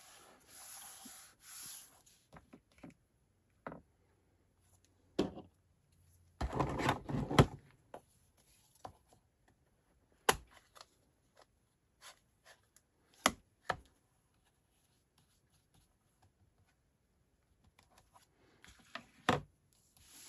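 Blending brush scrubbing ink onto cardstock in short strokes at the start, then desk handling noises: a louder rustling clatter around the middle and scattered light taps and clicks of tools being picked up and set down.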